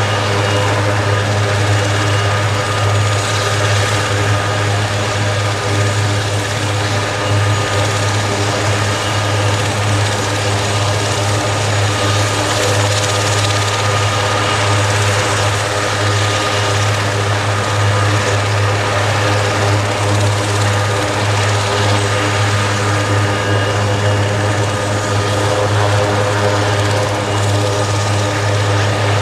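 Aerospatiale AS332L1 Super Puma helicopter running on the ground with its rotor turning: a steady low drone from the rotors under the high, even whine of its twin Turbomeca Makila turboshaft engines.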